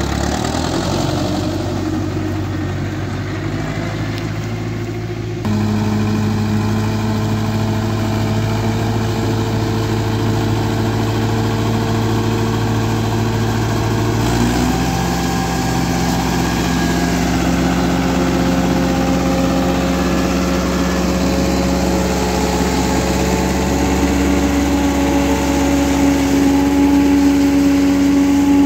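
Ursus C-360 tractor's four-cylinder diesel running steadily under load, driving a Taarup 101 single-row forage harvester that is chopping maize. The note changes abruptly twice, at about five and fourteen seconds in.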